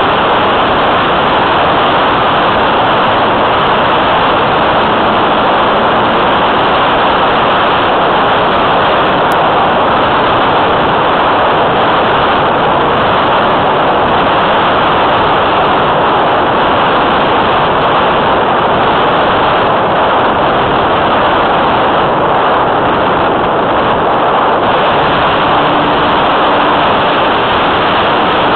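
Loud, steady rush of airflow over the microphone of a camera riding on a radio-controlled model plane in flight.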